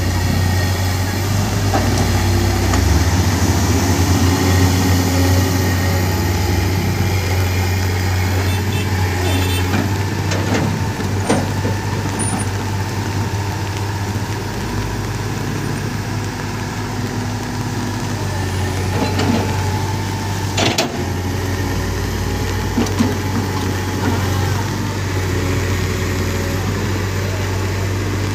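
Heavy diesel engines of a crawler excavator and a wheel loader running steadily under load as the excavator digs, with a few sharp knocks around ten seconds in and another near twenty-one seconds.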